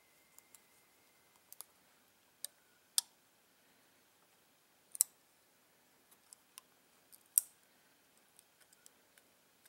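Sparse sharp clicks and snaps of a hobby knife working a thin sheet frame, scoring it and snapping the scored pieces off. The three loudest come about three, five and seven and a half seconds in.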